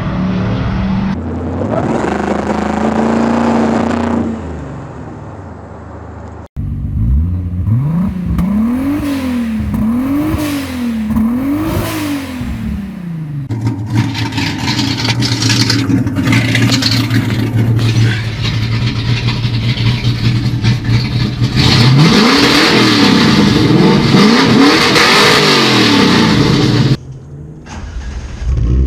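Car engines revving through their exhausts in a string of short clips that cut abruptly from one to the next. The middle clip has three quick free-revs, each rising and falling, about a second and a half apart. A later clip holds a steady higher drone before two more revs near the end.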